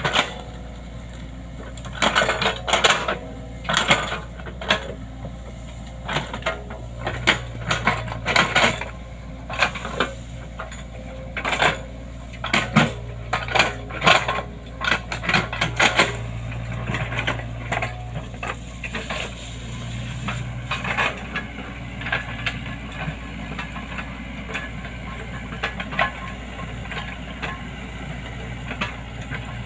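Hydraulic excavator at work: a steady diesel engine hum under frequent sharp metallic clanks and rattles, which are dense for the first half and thin out after.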